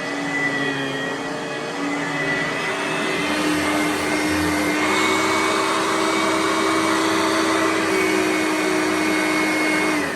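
Riccar SupraLite R10E upright vacuum cleaner running on carpet, a steady motor whine over rushing air, stepping slightly higher about halfway through. Near the end the motor is switched off and its whine falls away.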